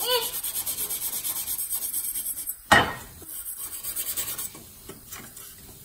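Brass wire brush scrubbing old chrome in quick, even back-and-forth strokes, worked into small stamped letters and a crack to lift grime without scratching. About halfway there is one sharp knock, then the scrubbing goes on more softly and fades near the end.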